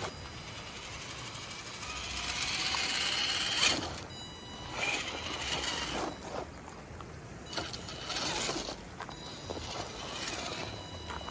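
1/10-scale RC rock crawler's electric motor and gearbox whining as it drives in several bursts, with a rushing, splashing hiss of water that is loudest about three seconds in.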